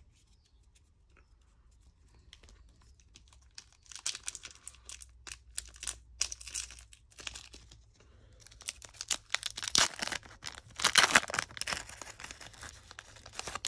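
Foil trading-card pack wrapper being crinkled and torn open by hand. Quiet for the first few seconds, then crackling handling that builds to the loudest tearing in the second half.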